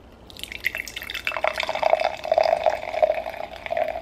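Cola soda poured from a can into a wine glass, splashing and fizzing as the glass fills under a head of foam. The pour starts about a third of a second in, and the splashing settles into a steadier tone after about a second.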